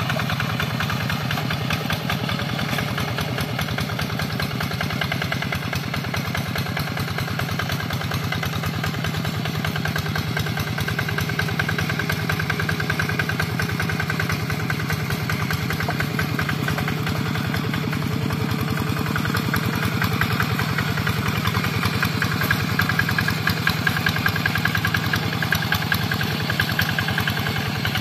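Two-wheel hand tractor's single-cylinder diesel engine running steadily with a fast putter while tilling a flooded rice paddy, growing a little louder in the second half.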